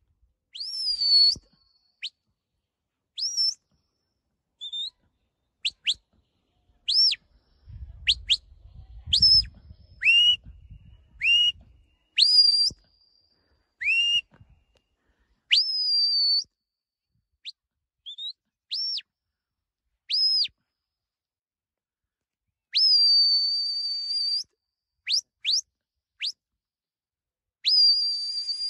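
A shepherd's whistle blowing a string of sheepdog commands: short sharp notes, many sliding up or down or dropping to a lower pitch, with a couple of longer held notes a few seconds before the end. These are the whistled stop and direction signals that steer a working sheepdog around sheep.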